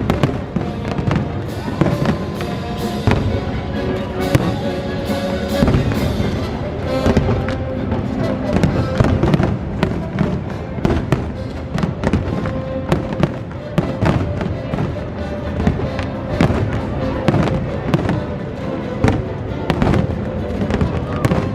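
Fireworks display: a continuous run of sharp bangs and crackling bursts, many in quick succession, with music playing alongside.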